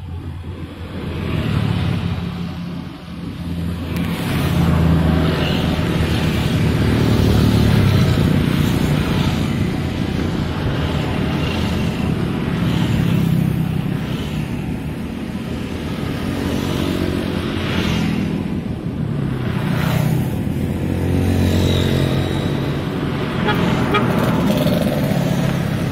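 Road traffic passing close by: motor scooters and cars driving past one after another, engine and tyre noise swelling and fading with each pass.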